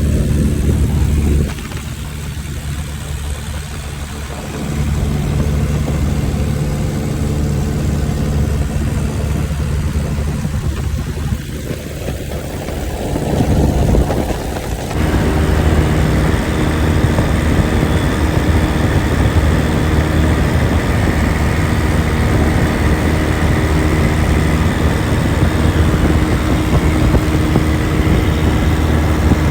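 Cub light airplane's piston engine and propeller running steadily. The engine note shifts a couple of times early on, then rises to a louder, higher-power run about 14 seconds in.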